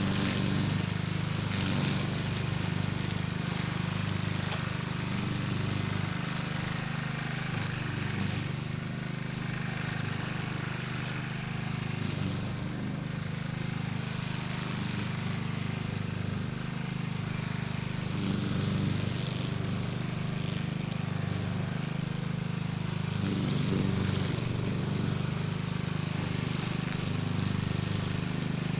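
Cub Cadet walk-behind string trimmer's engine running steadily, a constant low hum with a hiss of noise above it.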